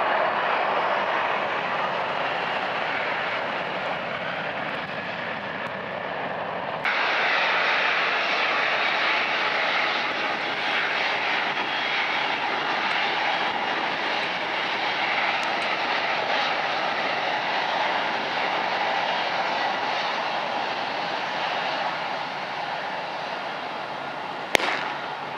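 Airbus A330 jet engines running at low power as the airliner taxis, a steady whining rush of engine noise. The noise jumps abruptly louder about seven seconds in, and there is one sharp click near the end.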